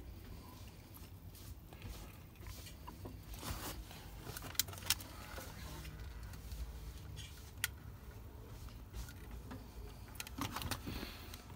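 Hands working wires and a soldering iron under a dashboard: scattered light clicks and rattles of handling, with a few sharper ticks about halfway through, over a low steady hum.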